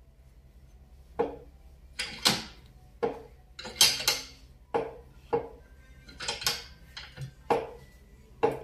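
Sharp metallic clinks, about a dozen at uneven intervals, from a sliding T-bar socket handle being worked around the screw of a bushing extractor, pressing a new greased swingarm bushing into place.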